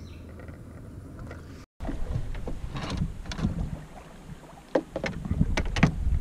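Knocks and bumps of gear against a canoe's hull over a low rumble of wind on the microphone, starting about two seconds in after a quieter stretch.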